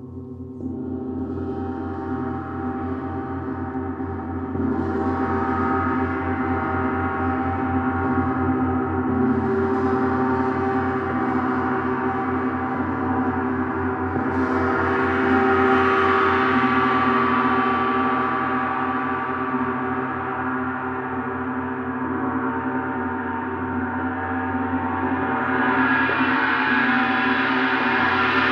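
Large gongs tuned to planetary frequencies being played continuously, a dense wash of overlapping ringing tones with a shimmering upper range. The wash swells up again with fresh strokes every several seconds and never dies away.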